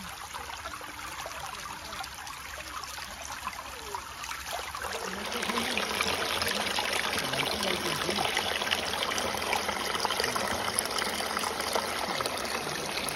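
Shallow rocky forest stream trickling and splashing over stones, louder from about five seconds in.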